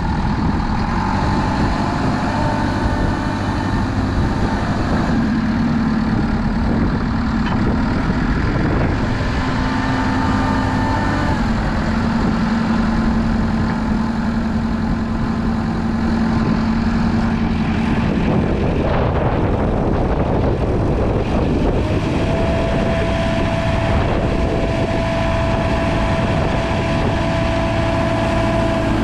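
JCB 3CX 4x4 backhoe loader's diesel engine running steadily, with whining tones over it that shift in pitch a few times, notably around 18 and 22 seconds in.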